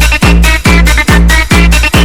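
Electronic dance music with no vocal line here: a heavy kick drum on every beat, a little over two beats a second, with a synth line pumping between the kicks.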